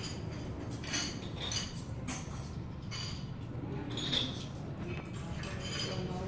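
Restaurant dining-room sound: cutlery and crockery clinking now and then over a steady low hum of the room.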